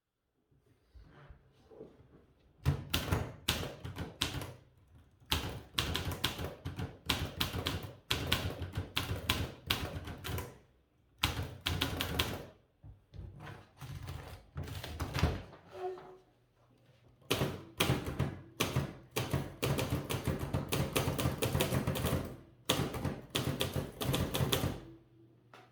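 Typewriter being typed on: fast runs of sharp keystroke clacks in bursts of a second or few, separated by short pauses, starting with a few faint taps and stopping shortly before the end.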